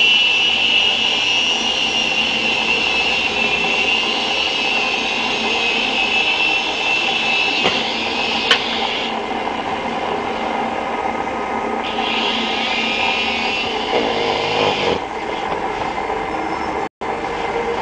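Electric motor and rotor blades of a JinXinDa 325 RC helicopter whirring steadily with a high whine that fades and returns a few times as the throttle changes. There is one sharp click about halfway through, and the sound drops out for an instant near the end.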